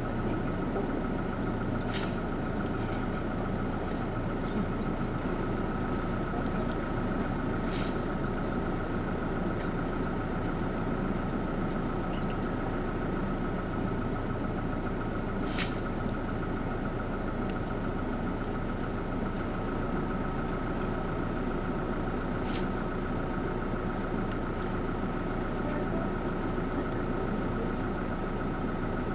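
An engine idling steadily, a constant low hum with a thin steady tone above it. A few short, faint clicks come through it, about every six to eight seconds.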